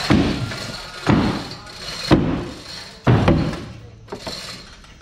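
Heavy thumps on a fibreglass speedboat hull in its mould, about one a second, each with a short ringing tail. The work is freeing the hull from the mould. A lighter knock follows near the end.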